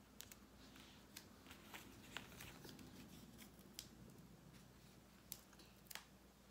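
Near silence: faint, scattered small clicks and rustles of hands handling foam sticker pieces and their paper backings, over a low room hum.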